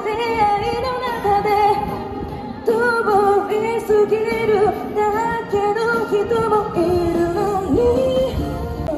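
A woman singing into a microphone, amplified, with long held notes that waver slightly in pitch over an accompaniment.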